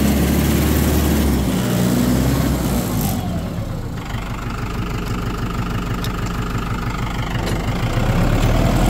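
A vehicle engine running steadily. Its sound drops back about three seconds in and picks up again near the end.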